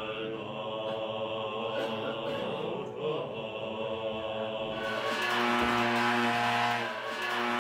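Tibetan Buddhist monks chanting in steady, drawn-out tones. About five seconds in the sound becomes louder and fuller, with a deep held note underneath.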